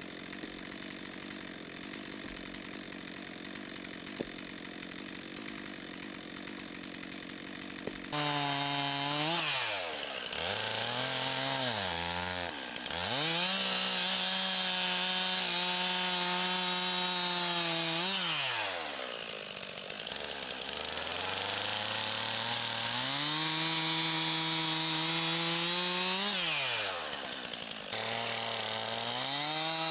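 Gas chainsaw bucking logs into firewood lengths. It runs steadily at first, then after an abrupt change about eight seconds in it is throttled up repeatedly, each time rising to a high held pitch for several seconds and falling back as the throttle is released, about four times.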